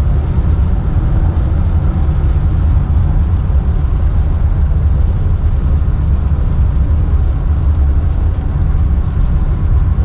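Steady low rumble of a car driving at highway speed on a wet road, heard from inside the cabin: road and engine noise with a faint hiss above it.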